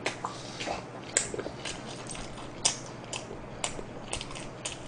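A person chewing a mouthful of jalapeño pizza close to the microphone: sharp wet clicks and smacks at an uneven pace, a few louder than the rest.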